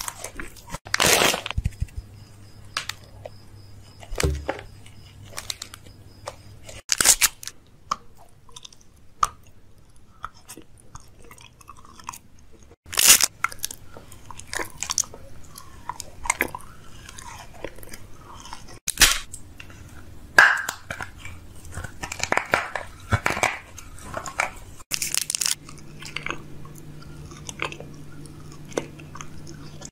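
A person biting into and chewing crunchy food: a loud crisp bite every few seconds, about seven in all, with smaller crunching and mouth sounds of chewing between them.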